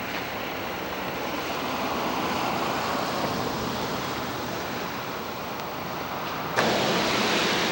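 Steady rushing noise without any pitch, stepping up abruptly and getting brighter about six and a half seconds in.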